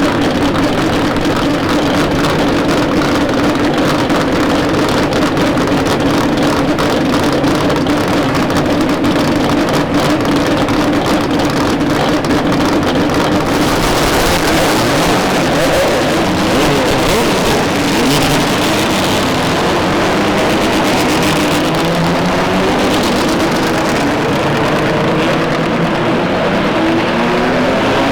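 Procar 4000 race cars' inline six-cylinder engines running hard. The engine note holds steady for the first half, then several engines rise and fall in pitch over one another, shifting and revving as the cars pass.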